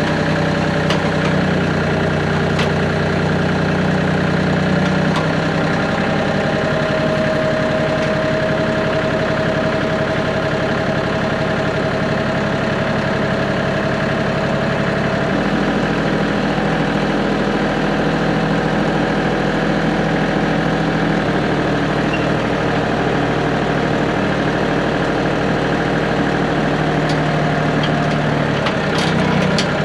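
Compact diesel tractor engine running steadily, its speed shifting to a new steady level a few times.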